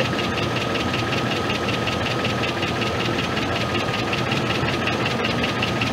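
Pickup truck's gasoline engine idling steadily, turning a newly fitted alternator. A fast, even ticking and a faint steady whine sit over the running.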